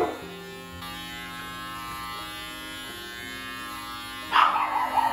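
Electric pet clippers buzzing as they shear a dog's matted, tangled coat. Near the end the sound turns much louder and rougher as the blades push into a thick mat of fur.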